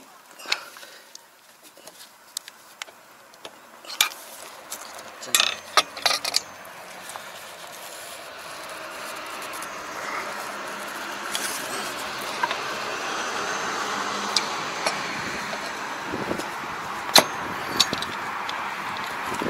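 Scattered metallic clicks and taps from gloved hands and a screwdriver working at the stuck cover of a Kobashi rotary tiller's gearbox, a small cluster about a third of the way in and a couple more near the end. Under them the steady noise of a running vehicle builds from about a third of the way in and holds.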